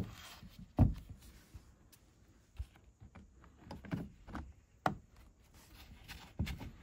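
Plastic housing halves of a cordless impact driver being fitted together and the tool handled on a wooden bench: a series of irregular knocks and clunks, the loudest just under a second in.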